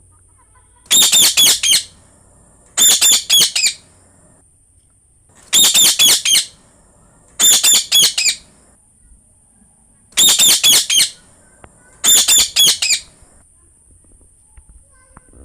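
Green parrot calling in six short bursts of rapid, shrill repeated notes. Each burst lasts under a second, and the bursts come about two seconds apart.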